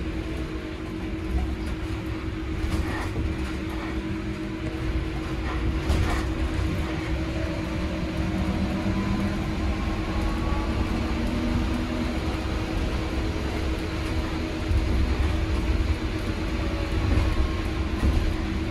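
Cabin noise inside a Heuliez GX337 Linium battery-electric bus under way: a low road-and-tyre rumble that swells and eases, over a steady hum. A faint whine glides in pitch about halfway through.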